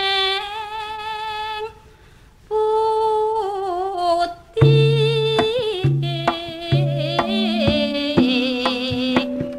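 Javanese gamelan campursari song: a female singer holds long wavering notes alone and breaks off briefly about two seconds in. About halfway through, the gamelan ensemble comes in under her voice with drum strokes and repeated struck notes.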